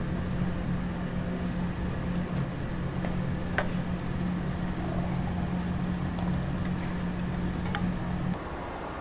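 A machine's steady low hum that starts at the outset and cuts off after about eight seconds, with a few light clicks over it.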